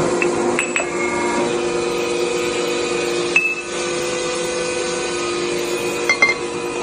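Diehead threading machine running with a steady hum, with a few sharp metallic clinks: one at the start, more shortly after, one about halfway through and a quick pair near the end.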